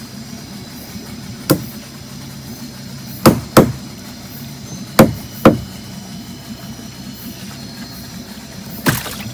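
Sharp knocks against the hull of a small boat as small fish are worked out of a gill net and dropped into the boat. There are about six knocks, mostly in pairs about three and five seconds in, with a steady low hum underneath.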